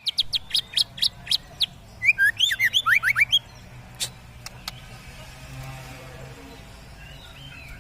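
White-rumped shama (murai batu) singing: a quick string of sharp, repeated high notes, about five a second, then a fast run of sliding whistled notes, and a couple of single sharp notes after.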